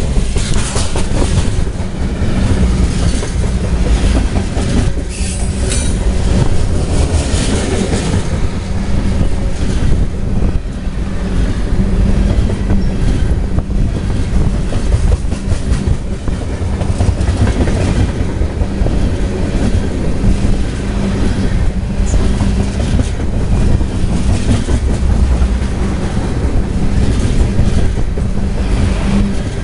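CSX freight train of white refrigerated boxcars rolling past at speed close by, a steady loud rumble with its steel wheels clicking over the rail joints, heard from a car pacing right beside it. The clicks are thickest a few seconds in.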